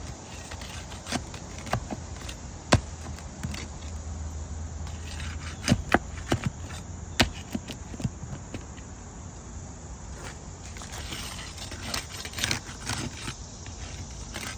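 Asphalt shingles being lifted and pried off a roof: scattered sharp clicks and snaps with scraping and rustling, the shingles coming away easily because they are barely bonded to the tar beneath.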